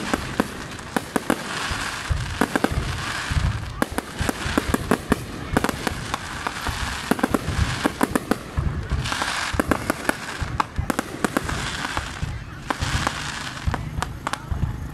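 Aerial fireworks display: shells bursting in a dense, overlapping run of sharp bangs and crackling, several a second.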